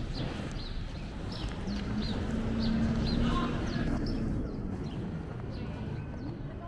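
Outdoor street ambience on a pedestrian avenue, with small birds chirping: short high notes that drop in pitch, repeated several times in the first half. A low steady hum rises and fades in the middle.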